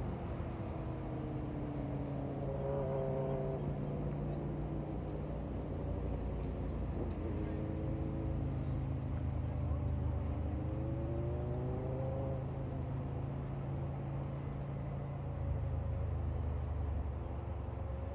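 Road traffic: a steady low engine drone, with engine notes that glide slowly up and down as vehicles pass.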